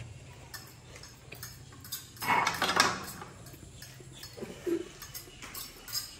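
Metal forks clinking and scraping on ceramic plates while instant noodles are slurped and chewed, with a louder slurp about two seconds in.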